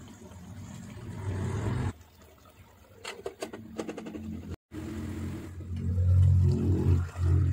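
Vegetables simmering in a pot with a low rumbling, bubbling noise, and a few quick metal clinks from the stainless pot lid about three seconds in. The sound drops out for a moment just past halfway.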